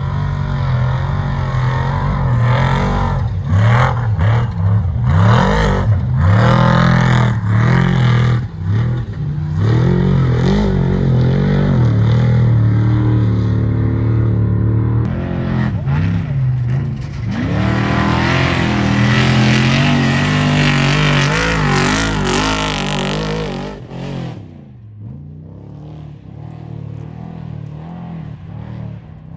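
Loud vehicle engine revving hard, its pitch rising and falling again and again, then dropping away sharply about 24 seconds in.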